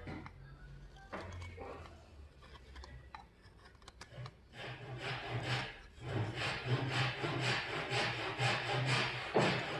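Repeated rubbing, scraping strokes, sparse at first, then coming thick and fast and louder from about four and a half seconds in.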